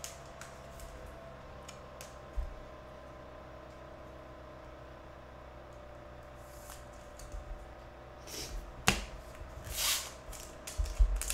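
Trading cards being handled over a faint steady hum, with a few small ticks; in the last few seconds the crinkle of a foil trading-card pack wrapper being picked up and handled.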